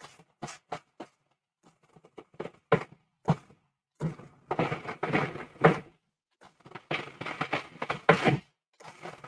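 Food processor pulsed in short bursts, its blade chopping walnuts and almonds down to a fine meal. Several brief pulses come first, then longer, closer-spaced ones from about four seconds in.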